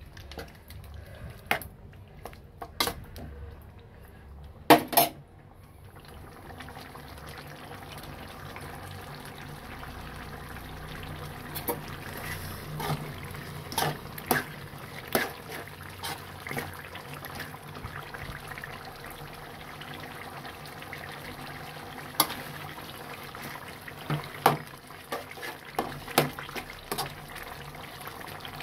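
A steel spoon stirs thick chicken gravy in a metal pot: repeated clinks and scrapes against the pan with a wet, liquid churning. The loudest sounds are two sharp knocks about five seconds in, and a steady hiss runs underneath from about six seconds on.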